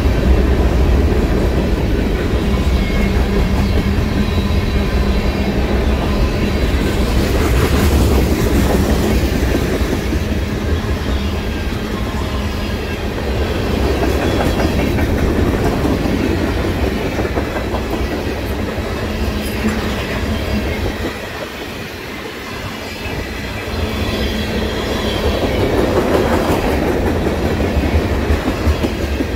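Freight train's covered hopper and tank cars rolling past, steel wheels rumbling and clicking over the rail joints. The noise eases briefly about two-thirds of the way through, then builds again.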